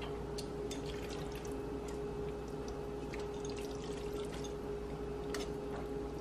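Tongs serving creamy shrimp alfredo and broccoli onto a plate: scattered light clicks and soft wet sounds, over a steady hum.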